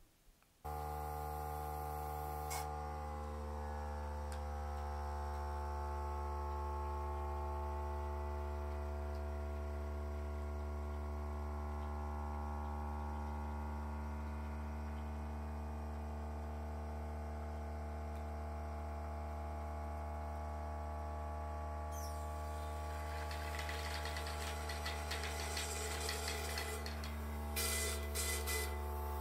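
Suction pump motor humming steadily as a thin flexible suction catheter draws water from a jug. From about 22 seconds in, a hissing slurp of air and water joins as the water runs out, with a few louder sputters near the end.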